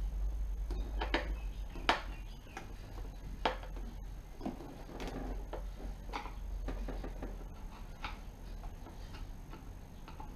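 Irregular small clicks and taps, with a brief scrape about halfway through, from a screwdriver working the screws of a scooter's plastic handlebar fairing and the panel being handled.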